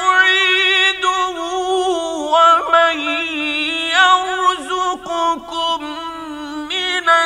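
A male Quran reciter's voice in the mujawwad style, singing a verse in long, melismatic phrases with vibrato and winding ornaments.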